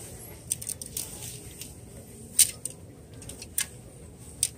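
Clothes hangers clicking and scraping along a clothing rack as shirts are pushed aside: a run of sharp, irregular clicks, the loudest about halfway through.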